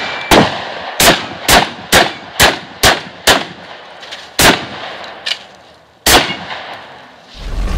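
Shotgun fired in a fast string: seven shots about half a second apart, then two more more slowly spaced, with a smaller bang between those two.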